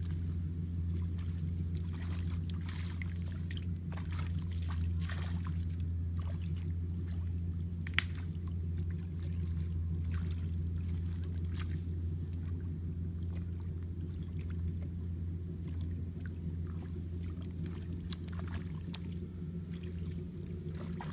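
Feet wading and splashing through shallow muddy paddy water, with scattered small splashes and one sharper splash or knock about eight seconds in, over a steady low hum.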